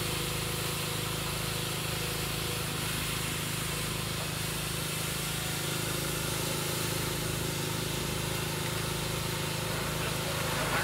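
Wacker Neuson mini excavator's engine running at a steady pitch, with an even hiss over it.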